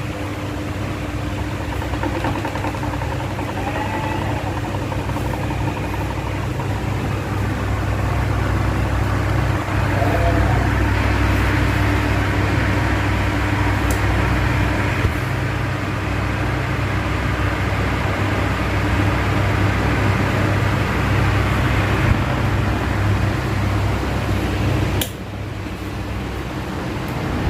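Electric fan running steadily: a motor hum under a whoosh of moving air, with the airflow buffeting the microphone into a fluttering low rumble. A sharp click near the end, after which the sound drops a little.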